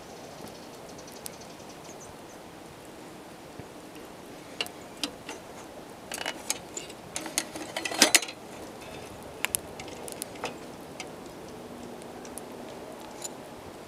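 Metal parts of a Dietz hurricane lantern clicking and clinking as it is handled: a scatter of sharp ticks from about a third of the way in, densest and loudest around the middle, over a faint steady hiss.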